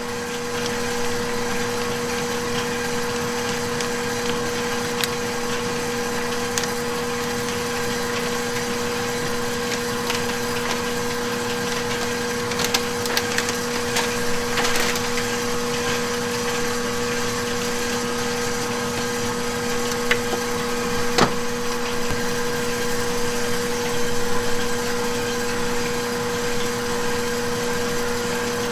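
Steady low hum of running kitchen machinery, holding two constant tones throughout. A few light clicks and knocks from bowls and utensils are scattered through it, most of them around the middle.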